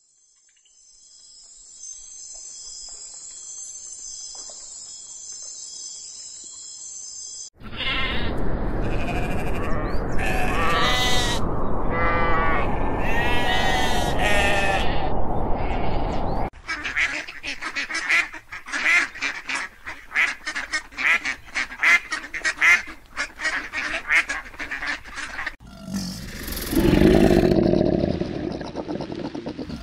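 A large flock of sheep and goats bleating, many overlapping calls at once. Before it comes a steady high-pitched buzz. After it comes a fast string of short repeated calls, then a lower, louder sound near the end.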